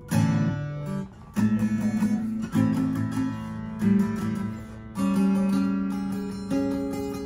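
Acoustic guitar played slowly, six chords strummed over the stretch, each left to ring and fade before the next.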